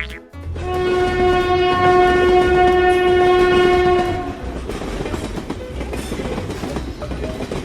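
Train horn blowing one long steady note for about three and a half seconds, starting about half a second in, over the running rumble and clatter of a train; the rumble carries on after the horn stops.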